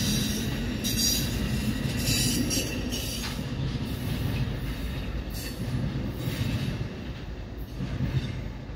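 Amtrak bi-level passenger train rolling away along the track, its wheels rumbling with short high squeals now and then, fading as it recedes.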